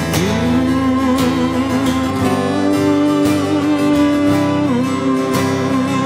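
Acoustic guitar strummed steadily while a violin plays a melody in long held notes, sliding up into the first one at the start: an instrumental break in a folk song, with no singing.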